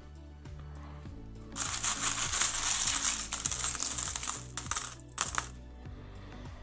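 A hand rummaging through a tub of loose coins, coins clinking and jingling together for about three seconds, then two short rattles. Soft background music with low steady notes underneath.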